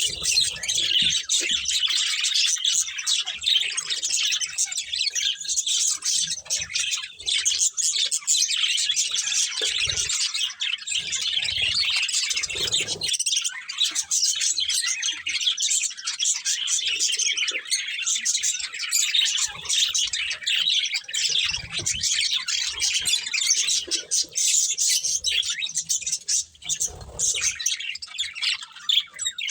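Several budgerigars chirping and chattering nonstop, with occasional soft low knocks.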